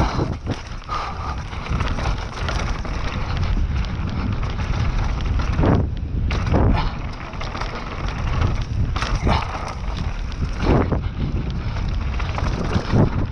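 Mountain bike riding fast down a dirt trail: wind buffeting the microphone over the rumble and rattle of tyres and frame on the rough ground, with several sharp knocks as the bike hits bumps.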